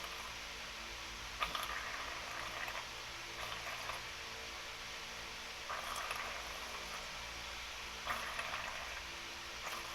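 A person gargling an oral rinse at the back of the throat, a bubbling sound that comes in several short bouts with pauses between.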